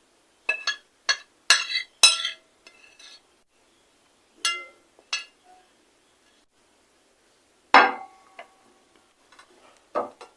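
Kitchen utensils and containers clinking and knocking together in a run of short, sharp clinks, with one louder strike near the end that rings briefly.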